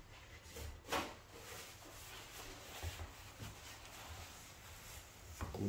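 Faint kitchen handling sounds: a single knock about a second in, then soft rubbing as a paper towel wipes the rim of a glass baking dish, with a few light clicks.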